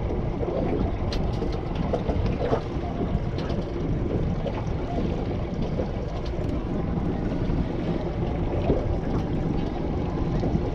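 Steady low rumble and hiss of a small open fishing boat at sea, with a few faint scattered clicks and knocks.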